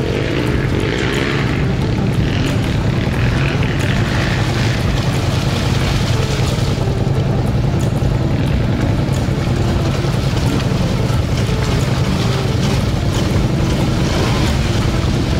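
Quad (ATV) engine running continuously at a fairly steady pace.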